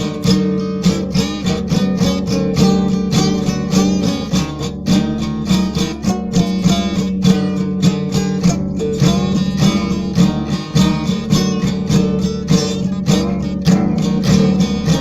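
Country instrumental music led by a strummed acoustic guitar, with a steady quick rhythm of strokes over sustained low notes.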